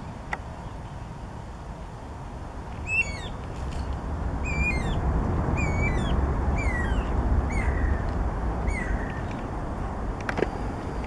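Distant jet engines of a landing Boeing 767-300ER rumbling as it rolls out on the runway, the rumble swelling from about three seconds in. Over it, a bird gives a run of about seven short calls, each falling in pitch, roughly twice every one and a half seconds.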